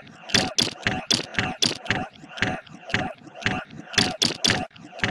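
Rapid, uneven clicking and clacking like a ratcheting clockwork mechanism, about three or four sharp clicks a second, made from recorded human voices manipulated in Audacity.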